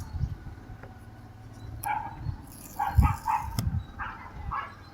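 A dog barking in short bursts several times in the background, over low thumps from the box being handled.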